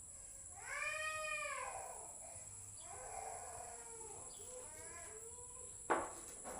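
A cat meowing: one long, louder meow about a second in, then a few shorter, quieter ones. A sharp knock comes near the end.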